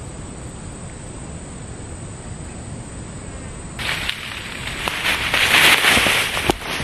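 Low steady outdoor background, then from about four seconds in loud rustling and crackling of leaves, fern fronds and grass stems as a person pushes through dense undergrowth close to the microphone.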